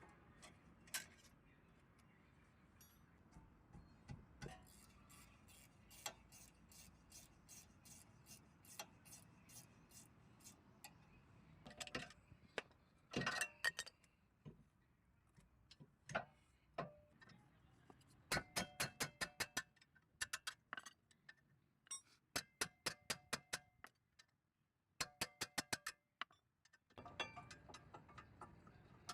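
Runs of sharp metallic clicks, several a second, with pauses between runs, from tools being worked on the brake parts.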